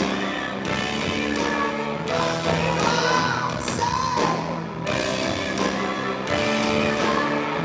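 Live rock band playing, with a singer's voice sliding up and down in pitch over steady chords and regular drum hits.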